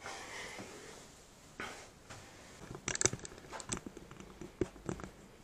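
Hotel room curtains being pushed aside by hand: soft fabric swishing, then a quick cluster of clicks and rattles about three seconds in, with a few more clicks after, as the curtain slides along its rail.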